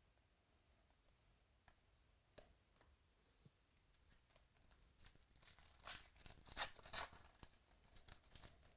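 Foil wrapper of a 2018 Donruss baseball card pack being torn open: a run of crackly tearing and crinkling that starts about halfway through and is loudest a second or two later. A few faint clicks of cards being handled come before it.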